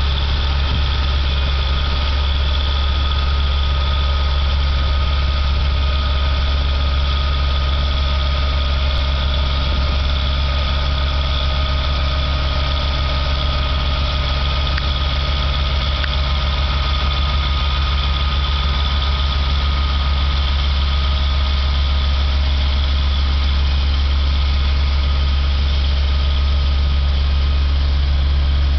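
Diesel engine of a BOMAG roller running steadily: a constant, unchanging low drone with a thin steady whine above it.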